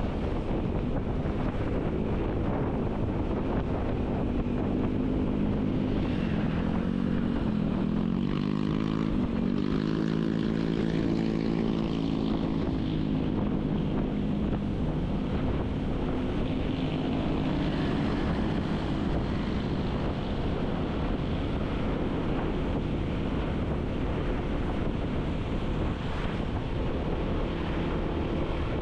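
Vehicle engine running under steady wind noise on the microphone while driving along a road. The engine's pitch drops twice as it slows, about six and eight seconds in, then rises again and holds steady.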